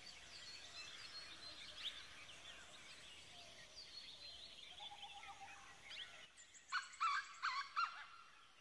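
Faint birdsong: many short chirps, with four louder calls in quick succession near the end.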